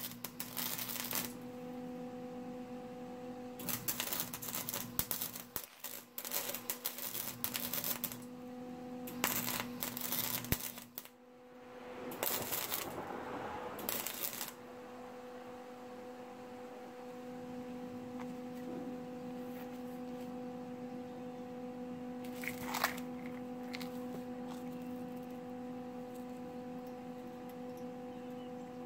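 Wire-feed welder arc crackling in four short runs over the first 15 seconds, welding a seam on a steel muffler. After that the welding stops and a steady electrical hum remains, with a single sharp click a little after 22 seconds.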